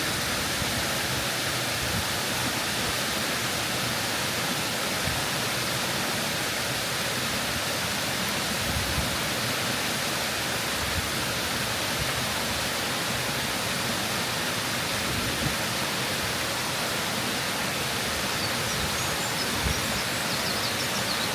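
Waterfall crashing down close by, a steady dense rush of falling water.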